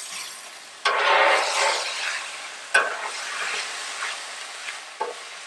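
Vegetables sizzling on a Blackstone flat-top griddle while a metal spatula scrapes and pushes them across the steel cooktop. The sizzle swells loudly about a second in, and there are two sharp clicks of the spatula against the griddle, one near the middle and one near the end.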